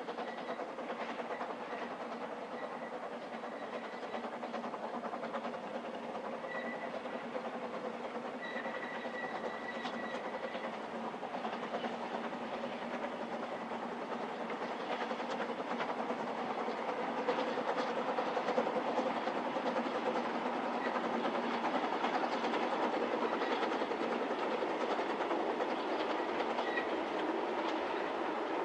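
Narrow-gauge steam train running along the line, the locomotive and its coaches or wagons making a steady rumble and clatter. The sound grows louder over the second half.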